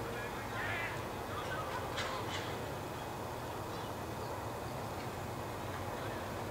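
Outdoor ballpark ambience: a steady background hiss with a few short calls, and two sharp knocks close together about two seconds in.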